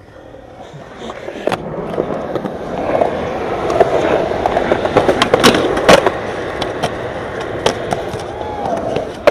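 Skateboard wheels rolling on concrete, growing louder from about a second in, with several sharp clacks of the board along the way.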